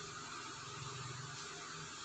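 A steady low hum with a faint even hiss under it.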